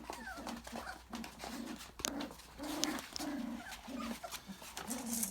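Five-week-old miniature Australian Labradoodle puppies vocalizing: a run of short, low yips and whines, about two a second.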